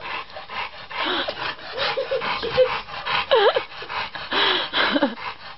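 Dog panting hard in a fast, rasping rhythm at close range, with a few short squeals mixed in.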